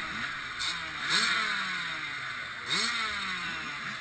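Two-stroke Kawasaki KX100 dirt bike engine blipped on the throttle, its pitch rising and falling several times.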